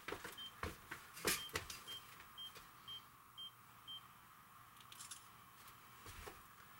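Camera self-timer beeping, short high beeps about twice a second that stop about four seconds in, followed about a second later by a brief high click. A few knocks and rustles come in the first second and a half.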